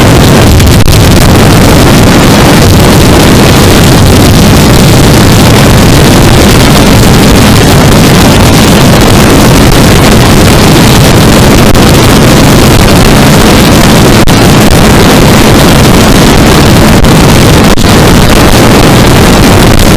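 Loud, steady wind roar on the microphone over a Yamaha R3's 321 cc parallel-twin engine cruising in sixth gear at highway speed.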